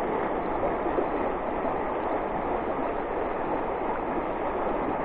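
Steady rushing of water over a shallow river riffle, an even hiss with no breaks.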